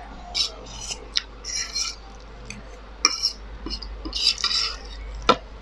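Noodles slurped and chewed close to the microphone, with a metal fork scraping and clinking on the plate; the loudest fork clink comes near the end.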